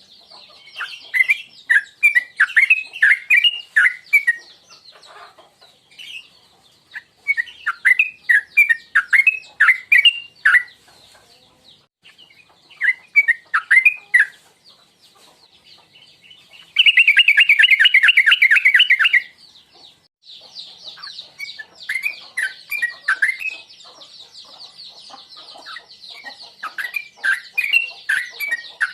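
Yellow-vented bulbul (trucukan) singing: phrases of quick, bubbling chirped notes in bursts of a few seconds with short pauses, and one dense rapid run of notes partway through. A faint steady high-pitched tone runs underneath.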